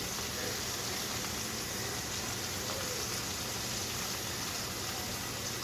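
Food frying in hot fat, a steady even sizzle with no change in level.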